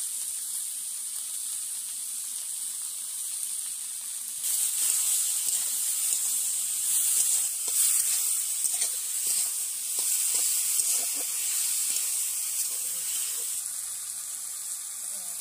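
Chopped vegetables sizzling in a hot iron kadai, a steady hiss that grows louder about four and a half seconds in, when a steel spatula starts stirring them, scraping and clicking against the pan.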